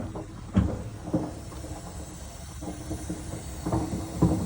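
Tank water heater popping and knocking at irregular intervals over a steady hiss and hum. The sound comes from calcium sediment built up in the tank of a heater that hasn't been serviced yearly.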